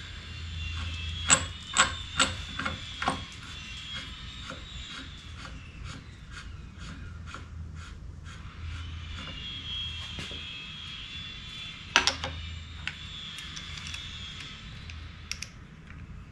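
Steel tooling on a Di-Acro No. 2 bender clinking and knocking as it is handled and set in place: a quick run of sharp metal clicks about a second in, then a single loud knock about twelve seconds in, over a steady low hum.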